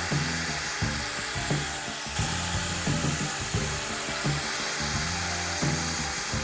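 Background music with a steady beat, over a cordless drill running a stepped pocket-hole bit through a pocket-hole jig's guide into a wooden board.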